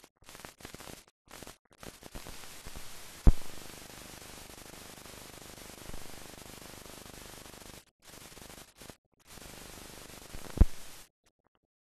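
Steady hiss of a blank film soundtrack, broken by several brief dropouts and two loud pops. It cuts off to silence about eleven seconds in.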